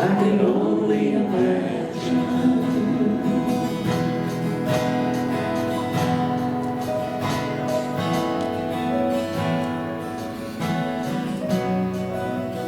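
Live worship band music led by strummed acoustic guitar, at a steady level.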